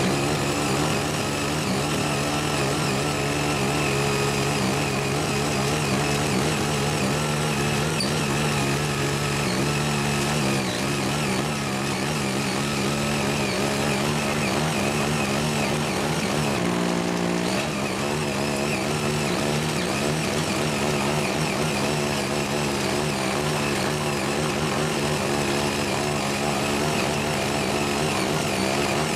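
Small engine of a CY80 foldable rotary tiller running steadily under load while its 8-blade rotor churns uncultivated soil. The engine note changes briefly about two-thirds of the way through.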